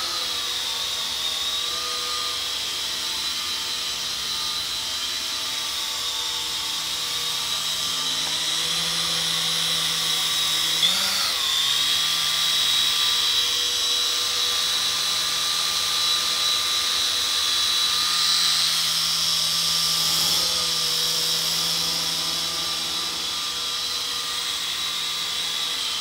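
The small electric motors of a SYMA S200 toy RC helicopter running in flight, a steady high whine with rotor buzz. The pitch dips and recovers briefly about eleven seconds in.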